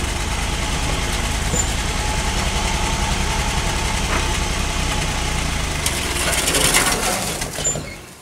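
The 305 V6 of a 1964 GMC pickup running after sitting for about 15 years, a steady uneven pulse that gets louder about six seconds in, then stops abruptly near the end.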